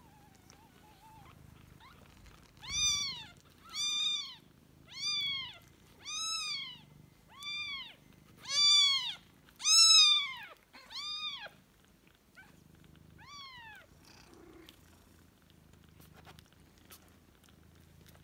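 A newborn Ragdoll kitten mewing: nine high, thin cries, each rising and then falling, about a second apart. A low purr runs underneath.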